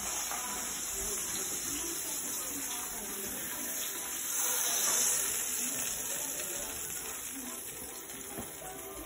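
Seared prime rib roast sizzling in its metal roasting pan, fresh out of a 475 °F oven, a steady hiss that swells about halfway through as the pan is set down on the counter.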